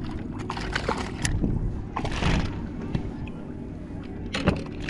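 Water sloshing against a kayak hull over a steady low rumble, with a few knocks and bumps of gear on the boat. The sharpest knock comes near the end.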